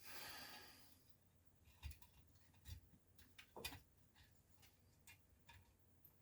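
Faint, scattered clicks and taps of small parts being handled as a floppy disk drive is put back together, the most distinct about two, three and four seconds in, after a soft rustle at the start.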